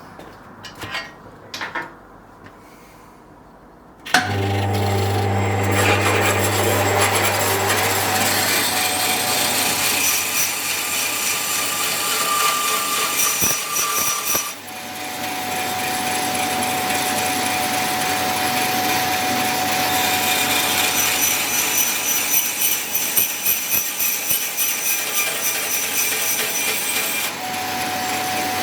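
Bandsaw switched on about four seconds in, its motor starting with a low hum, then running and sawing through a workpiece, with a brief dip about halfway before the cutting goes on. A few light handling knocks come before it starts.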